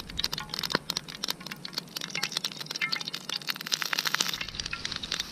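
Sunflower oil heating in a frying pan over a wood campfire, crackling as a dense, irregular run of sharp little pops: the oil is hot enough to start frying.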